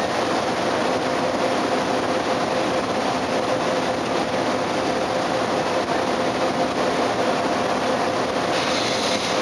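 Steady drone of a Sakurajima ferry's engines heard on its own deck: an even, unbroken hum over a constant rush of noise.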